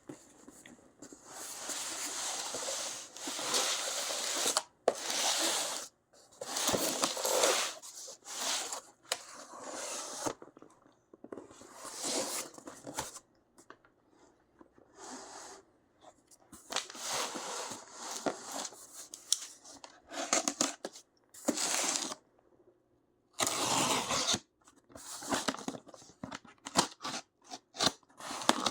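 Cardboard box and packaging being cut and torn open by hand, in irregular bursts of scratchy tearing noise with short pauses between them.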